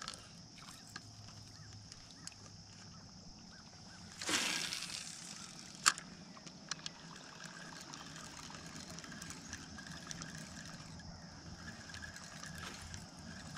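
Faint open-air ambience on a small boat on a calm lake, with a steady high hiss and faint water sounds. A brief whoosh comes about four seconds in, then a few sharp clicks.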